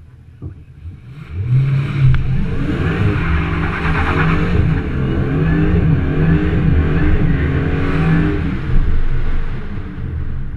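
FPV GS ute's supercharged 5.0-litre V8 revved up about a second in and held at high, wavering revs for several seconds with tyre noise, as in a drag-strip burnout. It eases off near the end.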